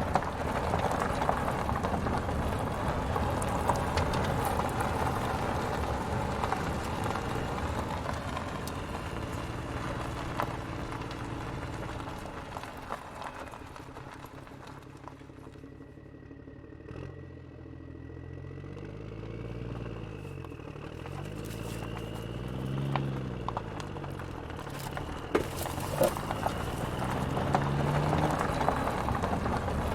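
Rattling, clattering noise of a toy road roller being moved over rough ground, with scattered sharp clicks. About halfway through it quietens and a low engine-like hum rises and falls.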